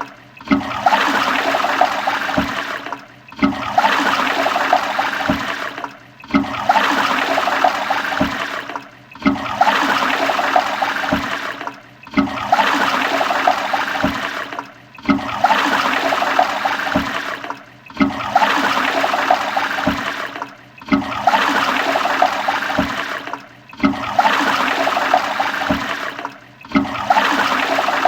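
Toilet flushing, the same short rush of water repeated about every three seconds with a brief dip between each one, each rush starting loud and tailing off.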